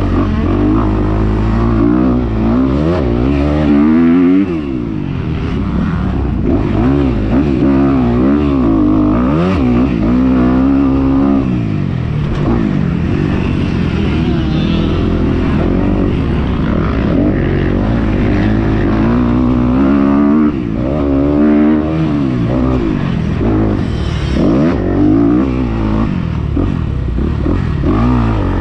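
Four-stroke single-cylinder dirt bike engine heard close up from the rider, revving hard and dropping back over and over as the bike is ridden through the gears around the track.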